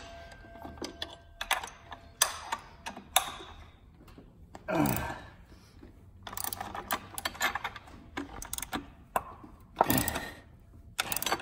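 Hand wrenches working a pulley puller on a power steering pump pulley: irregular metal clicks and clinks as the wrench is turned and repositioned on the puller's forcing screw, with a short falling-pitch groan about five seconds in.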